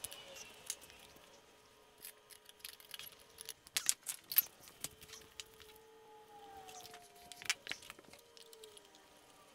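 Scattered metallic clicks and clanks of BMW E46 power steering racks and their steel lines and tie rods being handled and set down on a concrete floor, with a cluster of sharp clanks about four seconds in and another about three seconds later. A faint wavering tone sits underneath.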